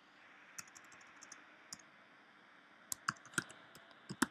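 Typing on a computer keyboard: scattered key clicks, with a quick run of light taps early in the first second and a few louder strokes around three seconds in and again near the end.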